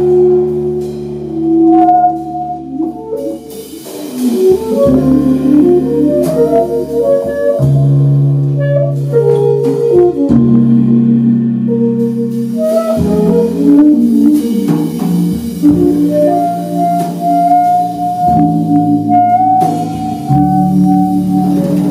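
Jazz quartet playing live: saxophone, double bass, drum kit and electric keyboard, with long held notes shifting every second or two over loose drumming.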